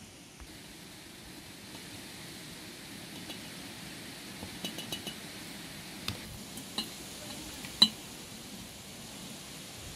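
A spoon scooping blackberries from an enamel bowl and dropping them into glass jars, making scattered clinks and taps against the bowl and jar rims. The loudest clink comes about eight seconds in, over a steady low hiss.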